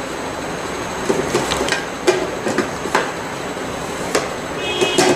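Plastic top lid of a gravity water purifier being fitted and closed: a series of light plastic knocks and clicks over a steady background hiss, with a brief squeak near the end.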